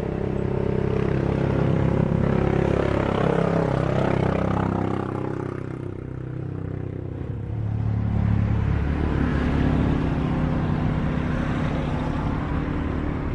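Jet airliner engines at take-off power as the plane lifts off and climbs away, the noise easing after a few seconds. About eight seconds in, jet engine noise rises again from an airliner on the runway.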